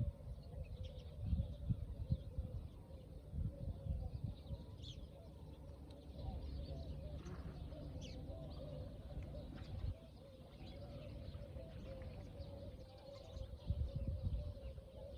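Faint birds calling outdoors: scattered short, high chirps over an uneven low rumble that comes and goes in gusts.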